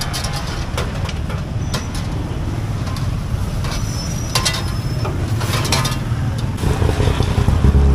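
Street-food stall ambience: a steady low rumble with scattered clinks and taps of metal pots, ladles and trays. A louder low hum comes in right at the end.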